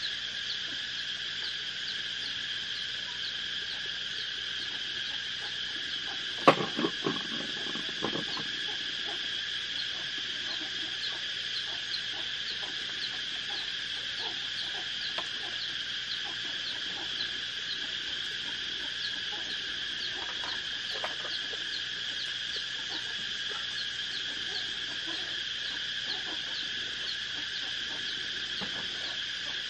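A steady, dense chorus of insects chirping, with a fast repeating chirp riding on it. About six and a half seconds in there is one sharp click followed by a few lighter clicks, and faint small clicks come now and then.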